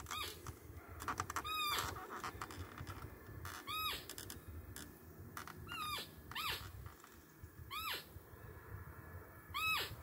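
Roe deer fiep calls: thin, high-pitched whistles, each rising and then falling, about six of them spaced a second or two apart. This is the doe's contact whistle that roe-buck hunters imitate during the rut to lure a buck.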